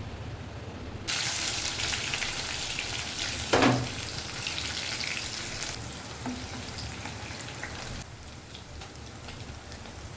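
Food frying in hot oil in a pan. The sizzle starts suddenly about a second in, has a brief louder knock partway through, and thins out near the end.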